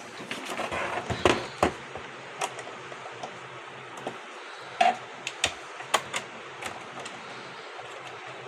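Scattered clicks and knocks of a screwdriver and screws against a label printer's plastic case as it is being unscrewed. The knocks bunch up near the start and again about halfway through, over a steady hiss.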